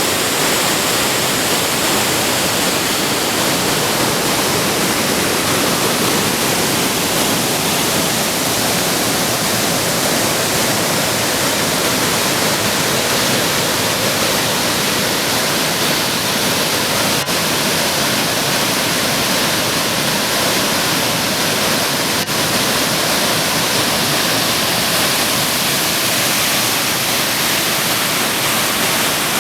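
Wide waterfall pouring over a rock ledge: a loud, steady rush of falling water.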